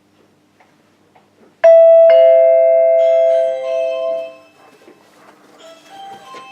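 Door chime sounding a two-note ding-dong: a higher note about one and a half seconds in, then a lower note half a second later, both ringing out together for about two more seconds before fading.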